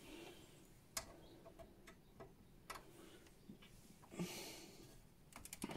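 Faint, scattered small clicks and ticks of screws and a screwdriver being handled at a graphics card's mounting bracket in a PC case, with a short rustle about four seconds in and a quick run of clicks near the end.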